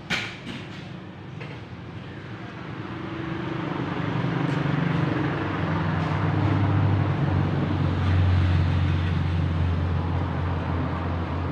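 A motor vehicle's engine running, a low hum that grows louder over several seconds and then holds steady. A short knock sounds right at the start.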